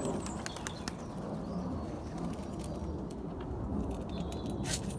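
Young racing pigeons cooing softly, with scattered sharp taps and clicks, a few of them close together near the end.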